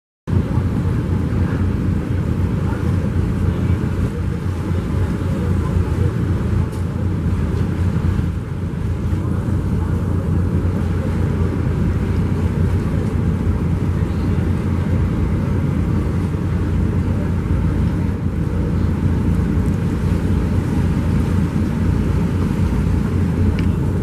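Twin six-cylinder Daihatsu marine diesel engines of a large river passenger launch running under way, a deep, steady, rhythmic throb.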